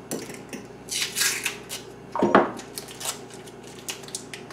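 Butter wrappers rustling as sticks of butter are unwrapped and broken up by hand, with a single louder knock a little over two seconds in.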